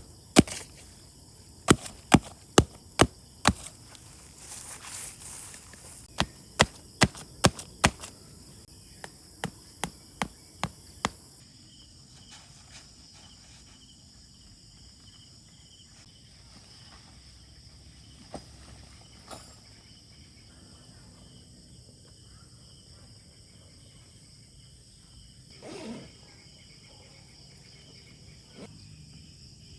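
Crickets and other insects trilling steadily at a high pitch. For the first ten seconds or so, this is broken by loud, sharp knocks in quick runs of about five, roughly two or three a second, with short pauses between runs. A single brief rustle comes near the end.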